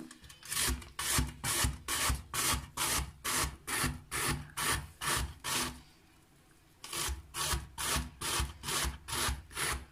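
Fresh zucchini rubbed up and down a metal box grater, a rhythmic scraping at about three strokes a second, with a pause of about a second past the middle before the grating starts again.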